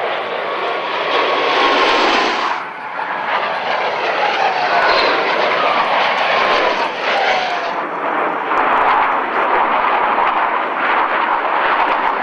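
Blue Angels F/A-18 Hornet jets flying past with loud engine noise. A falling whine comes twice, once early and again in the middle, as the jets go by.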